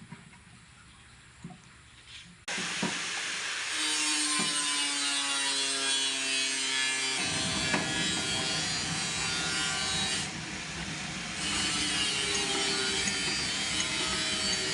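Banana stick cutting machine switched on about two and a half seconds in, its motor whining up in pitch as it comes to speed, then running with a dense rasping cutting noise that eases briefly around ten seconds in and returns.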